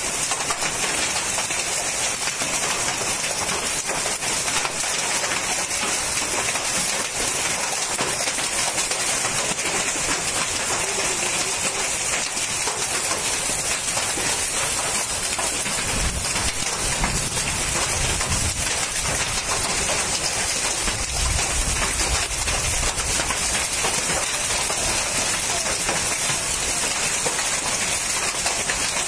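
Hailstorm: hail and heavy rain pelting down steadily, a dense hiss of many small impacts. A low rumble comes twice past the middle.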